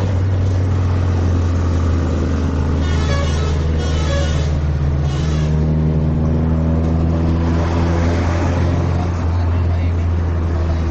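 Bus engine running steadily at idle: a loud, even low hum that holds throughout.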